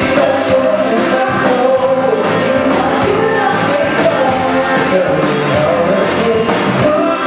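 Live band playing a song with a singer, amplified over a sound system, with a steady beat.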